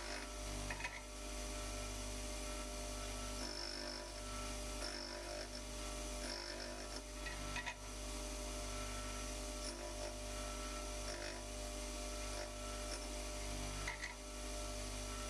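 Bench grinder with a 150 mm wheel running with a steady hum, with short bursts of light grinding every few seconds as the primary land on the end of an end mill, held in a sharpening fixture, is passed against the wheel.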